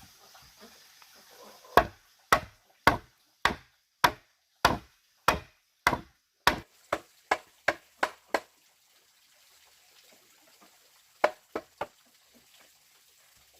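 A tool striking wood in a series of sharp blows, about two a second at first, then quicker and a little lighter before stopping; three more quick blows follow a few seconds later.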